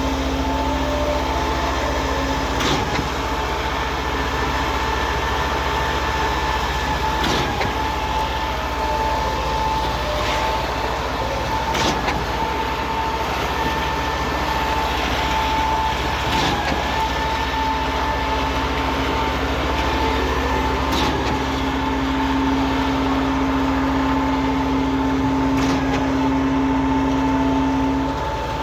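Cifa truck-mounted concrete pump running under load: steady engine and hydraulic drone with a steady whine, and a knock every few seconds as the pumping cylinders change stroke.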